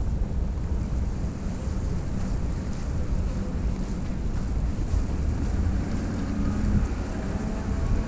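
Snowstorm wind buffeting the microphone: a steady low rumble with a gusting hiss above it. A faint wavering tone comes in during the second half.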